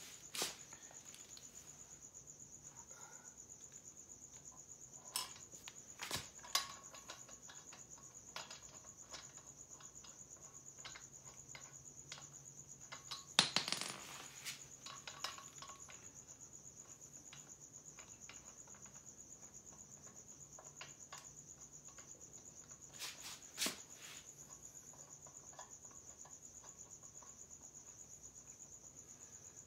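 Crickets chirping in a steady high trill, with scattered small metal clicks and clinks from screws, a washer and a hex key being handled and fitted at a motorcycle's front axle; the loudest cluster of clicks comes about halfway through.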